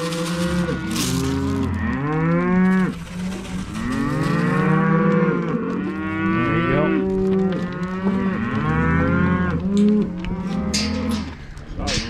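A bunch of black cows and calves bawling over one another, many long overlapping calls without a break, as the cows are being sorted off their calves.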